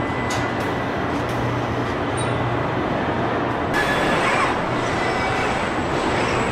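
Steady din of automated assembly-line machinery in a robotic body-welding shop: a broad rushing noise with a low hum underneath. A little before four seconds in the sound turns brighter and hissier.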